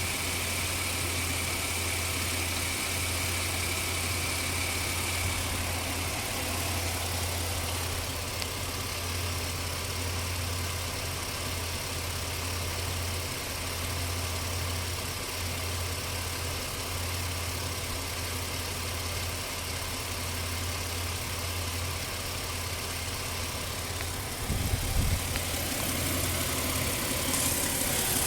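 2004 Ford Explorer engine idling roughly, its steady low hum wavering unevenly; its spark plug wires are worn. A brief louder bump comes about 25 seconds in.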